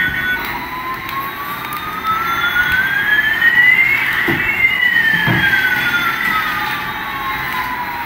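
Electronic siren-like sound from a battery-powered toy airliner's sound chip: two tones gliding smoothly in opposite directions, one rising and one falling, crossing about halfway through. Two dull knocks come a second apart near the middle.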